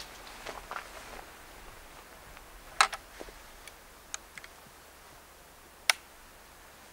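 Sharp metallic clicks from the breech and lock of an M1849 kammerlader, a breech-loading percussion rifle, as its action is worked by hand: two loud clicks about three seconds apart, with a few fainter ticks between them.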